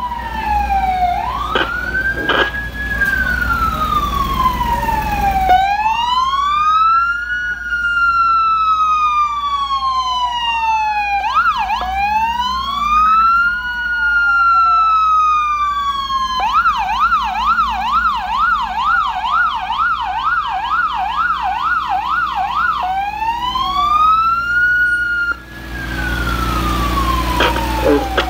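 Several emergency-vehicle sirens sounding at once, overlapping slow wails that rise and fall every few seconds. In the middle, one switches to a fast yelp for about six seconds, about three cycles a second, then returns to the wail.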